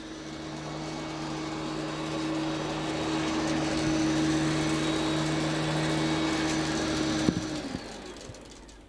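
Hoover Turbomaster upright vacuum cleaner running with a steady motor hum and rush of air, then switched off with a click about seven seconds in, the motor winding down.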